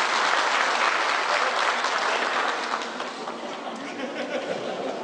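Audience applauding, dying down about three seconds in, with a few voices murmuring underneath.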